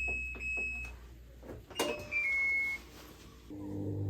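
Electronic beeper on a washing machine's control panel: a high beep repeats about twice a second and stops about a second in. A click follows, then a short falling three-note chime, and a low motor hum starts near the end.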